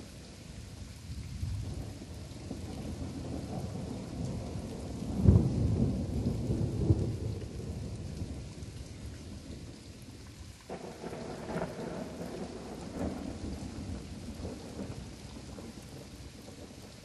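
Thunderstorm: steady rain with a loud clap of thunder about five seconds in that rolls on for a couple of seconds, and a second, weaker roll of thunder after about eleven seconds.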